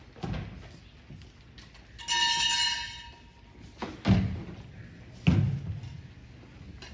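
Stage props being handled and set down on a hall floor: scattered knocks and two heavy thumps about four and five seconds in, echoing in a large hall. About two seconds in, a high tone lasts about a second.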